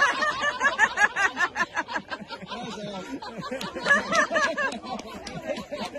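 Several people laughing and chattering at once, with louder bursts of laughter now and then.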